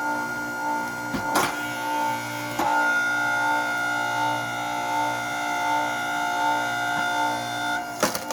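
Hydraulic log splitter running with a steady whine that gets louder and higher about two and a half seconds in as the ram drives into a larch log, then drops back near the end with a sharp crack.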